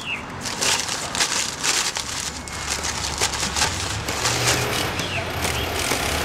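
Crinkly plastic chip bag being pulled open and rummaged through by hand: a dense run of sharp crackles and rustles.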